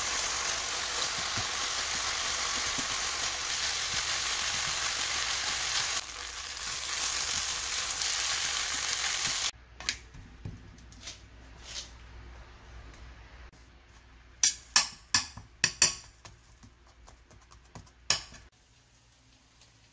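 Kimchi fried rice sizzling loudly as it is stir-fried in a hot nonstick frying pan, an even frying hiss. It cuts off abruptly about halfway through, leaving quiet, with a run of sharp clicks near the end as metal tongs tap the stainless steel pan while turning a tortilla.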